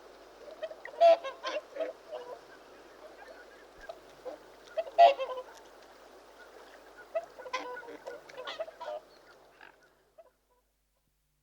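Swans calling: short, loud calls in clusters about a second in, around five seconds, and between seven and nine seconds, over a steady hiss.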